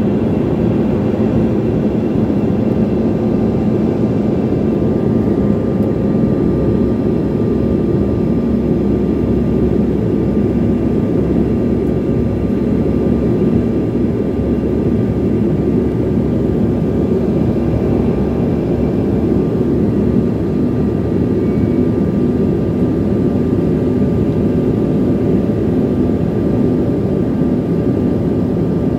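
Steady drone of a small passenger plane's engines and rushing air, heard from inside the cabin in flight, with a constant low hum running through it.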